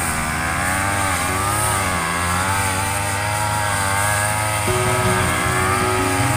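Brush cutter engine running at high revs, its pitch wavering up and down as the throttle varies while it cuts the grass between the cassava rows.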